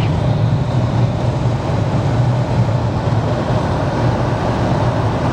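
Steady cabin noise of a small Kia car driving on a snow-covered road: a constant low hum of engine and tyres with road noise over it.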